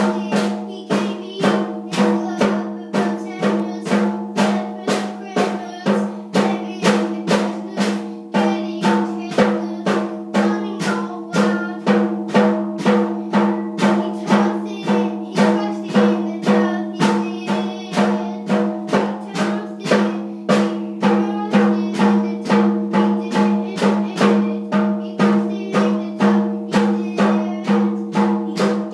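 Child's toy drum kit beaten with sticks at a steady pace, about two to three hits a second, the small drums ringing between strokes with occasional cymbal.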